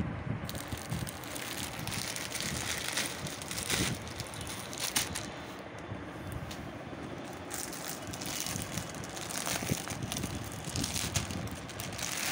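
Plastic packaging rustling and crinkling in irregular crackles as a plastic courier mailer is pulled open and a dress in a clear plastic packet is handled.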